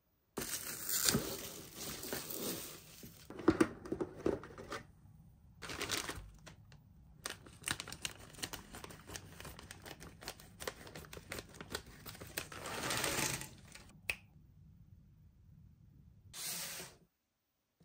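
Plastic packaging crinkling and tearing as a jigsaw puzzle is unboxed, with scissors cutting open the clear plastic bag of cardboard pieces. It comes in several separate stretches, with many small clicks of handling in the longest one.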